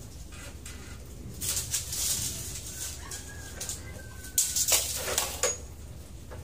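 Handling noises at a rebar cutting bench, then about four and a half seconds in a steel tape measure is let go and retracts into its case with a quick rattling clatter lasting about a second.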